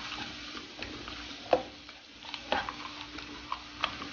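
A spoon stirring a thick sauce in a frying pan, with a handful of sharp clinks against the pan over a low, steady sizzle.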